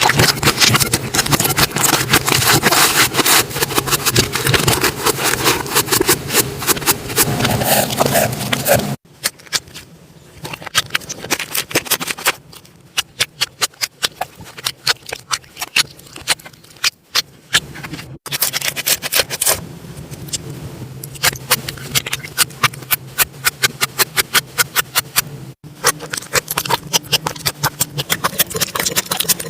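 Slime being squished and poked by hand, making dense wet clicks and crackling pops. The sound changes abruptly three times, getting quieter and sparser about a third of the way in and louder again later.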